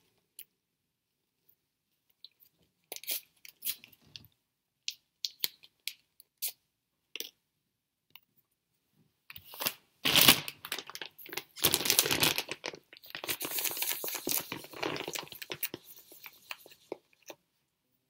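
A sterile needle's paper-and-plastic peel pack being torn open, with crinkling, in loud rustling stretches through the second half, after scattered light taps and clicks of items handled on a table.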